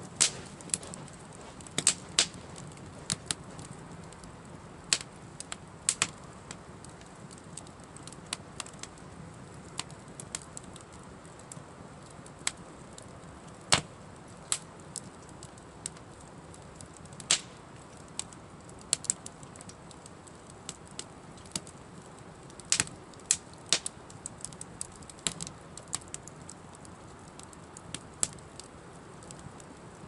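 Campfire of thin wooden sticks and slats crackling, with irregular sharp pops and snaps over a faint steady hiss of the flames.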